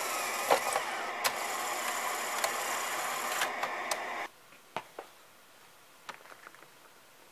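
Sony SL-2410 Betamax's cassette loading mechanism running steadily with sharp clicks as a tape is loaded, stopping abruptly about four seconds in. After that it is quiet apart from a few single clicks of the front-panel timer buttons being pressed.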